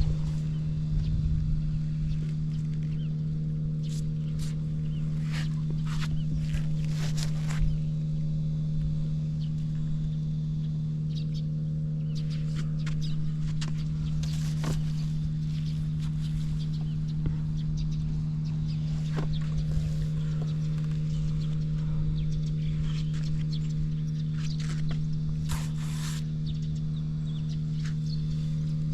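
Honda Cabina 50 scooter's small two-stroke engine idling steadily, an even, unbroken hum, with a few light clicks and rustles over it; it runs smoothly with no abnormal noise.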